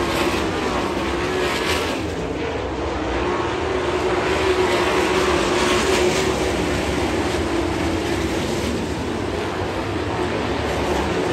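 A pack of winged sprint cars racing on a dirt oval, their V8 engines at full throttle in a continuous loud drone. The sound swells as cars pass close, most strongly about five to six seconds in.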